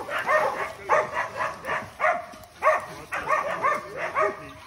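Hog-hunting dogs barking in a steady run of short barks, about three a second, which points to the dogs baying a hog they have found.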